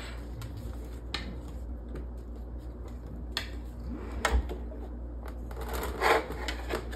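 Handling noise from a 3D printer being turned back upright on a countertop: a few scattered knocks and rattles of its plastic and metal frame over a low steady hum.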